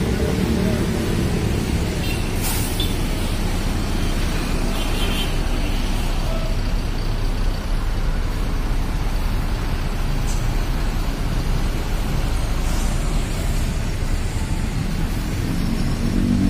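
Mercedes-Benz OH-1626 coach's diesel engine running with a steady low rumble as the bus moves slowly past and away. A few short air hisses come through, about two and a half seconds in and again near thirteen seconds.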